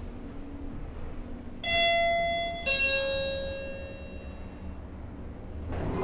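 Kone lift's arrival chime: two bell-like tones, the second lower and about a second after the first, each ringing out and fading over the low hum of the lift car. Near the end a rising mechanical rumble starts as the doors begin to open.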